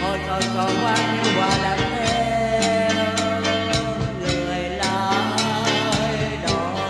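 Instrumental break in a Vietnamese song: a band backing with a wavering lead melody over held bass notes and regular drum hits.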